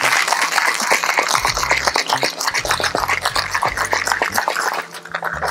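Ice cubes rattling hard inside a two-piece metal cocktail shaker during a vigorous shake. The fast, continuous clatter stops near the end.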